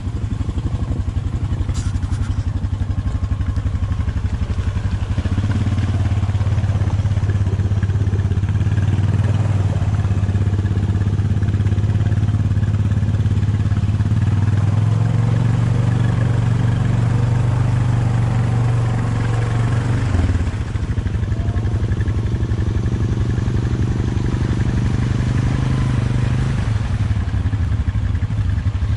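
ATV engine running steadily under throttle as the quad is ridden. It gets louder about five seconds in and eases briefly about twenty seconds in.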